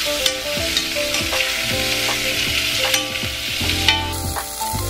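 Sliced onions sizzling as they sauté in an enameled cast-iron Le Creuset pot, with a spatula stirring them and scraping and tapping against the pot.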